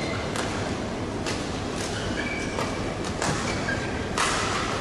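Badminton rally: rackets striking the shuttlecock about six times, half a second to a second apart, the loudest hit a little after four seconds in, with short shoe squeaks on the court floor over the steady background noise of the hall.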